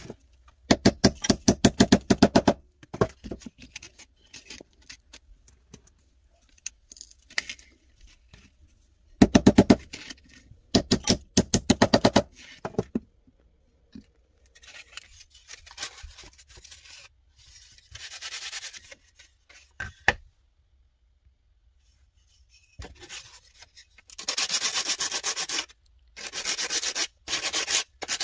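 Several quick runs of light hammer taps, as a small hammer drives pushpins through sandpaper into a wooden stick. Near the end comes a series of short back-and-forth sanding strokes, a wood block rubbed against the sandpaper.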